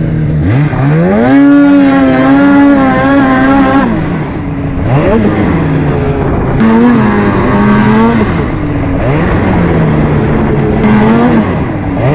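Snowmobile two-stroke engine revving: the pitch climbs, holds high for a couple of seconds, then falls back off the throttle, three times over.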